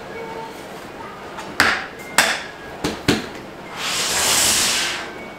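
Plastic storage tote having its snap-on lid pressed down: four sharp plastic knocks and snaps, then a longer rushing noise that swells and fades about four seconds in.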